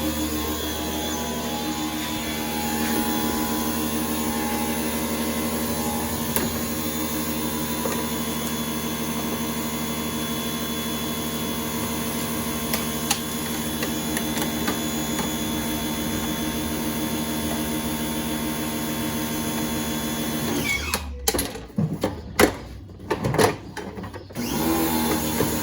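Steady mechanical hum of a running electric motor. Near the end it cuts out abruptly several times, with a few sharp clicks.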